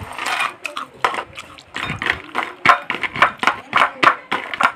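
Small hard onion crackers clattering as they are tipped from a plastic plate into a glass bowl: a quick run of sharp clicks and rattles that grows denser about two seconds in.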